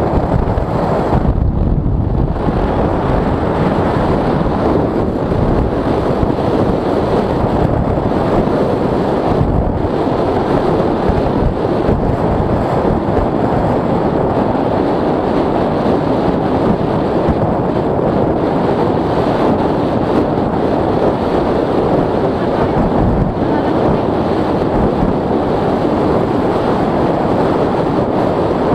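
Steady, loud wind rush buffeting the microphone of a camera riding on a moving motor scooter, with the road noise of the ride blended underneath.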